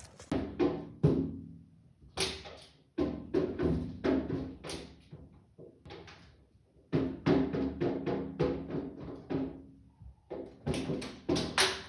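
Music with drum hits over sustained pitched notes, in short phrases that stop and start again a few times.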